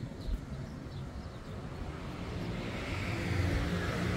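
A car approaching along the street, its engine and tyre noise growing steadily louder.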